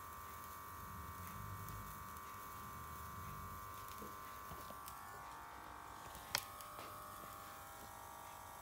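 Small kitchen blowtorch running with a faint steady buzzing hiss as it caramelises the sugar on a crème brûlée. A single sharp click about six seconds in.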